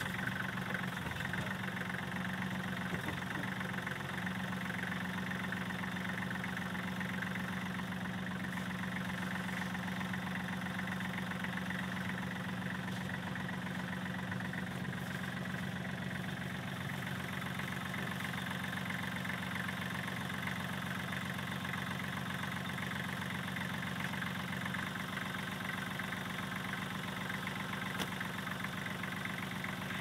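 Kubota L35 tractor's diesel engine idling steadily.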